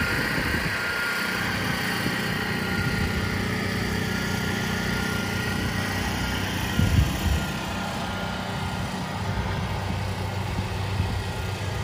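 An engine running steadily with an even drone, with a couple of brief low thumps about seven seconds in.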